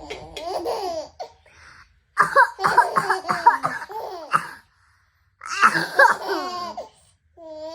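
Baby laughing in three or four bouts of high-pitched, choppy giggles, with short pauses between them.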